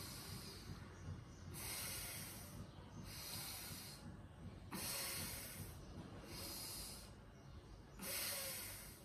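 A woman breathing hard and audibly in time with a yoga shoulder-pulsing exercise: about six hissing breaths, each lasting about a second, in a steady rhythm, with the last one the loudest.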